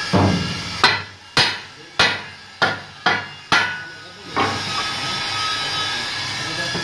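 A hammer strikes a steel truck wheel rim about eight times in quick succession, each blow a sharp metallic clank with a brief ring; the last one is softer. The rim is clamped on a lathe and is being knocked true in the chuck. A steady machine hum runs underneath.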